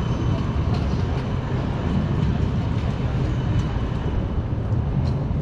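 Steady low rumble of city street noise, traffic and trams, with no distinct single event.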